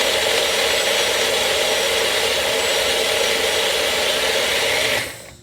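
Electric blender running steadily, chopping garlic in a little apple cider, then switched off about five seconds in.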